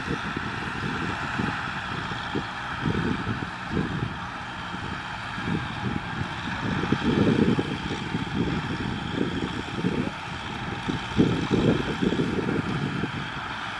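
Kubota M6040SU tractor's four-cylinder diesel engine running steadily while pulling a cultivator through the field, with wind buffeting the microphone in irregular gusts.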